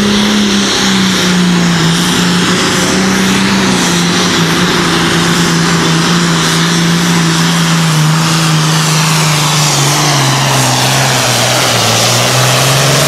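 Super Farm pulling tractor's turbocharged diesel engine running at full power while pulling the weight sled. It is loud and steady, and its pitch sinks slowly as the engine labours under the sled's growing load.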